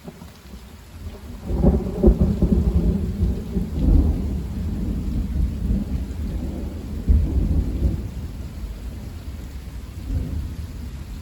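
Thunder rumbling loudly, starting about a second and a half in and rolling on for several seconds with further swells before slowly fading, over steady rain.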